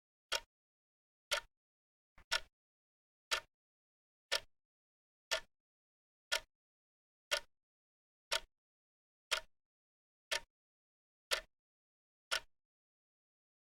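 Wrist watch ticking steadily, about one sharp tick a second with silence between ticks.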